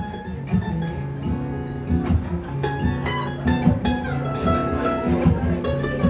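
Instrumental break of a live song: an acoustic guitar plays a picked melodic line over steady bass notes, with no singing.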